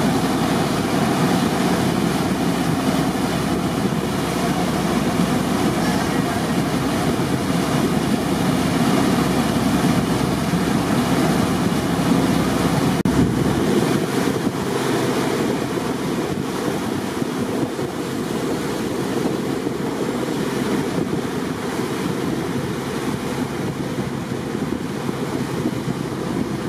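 Wake and hull spray rushing past a glass-bottom tour boat under way, with wind buffeting the microphone. The deep rumble drops away about halfway through.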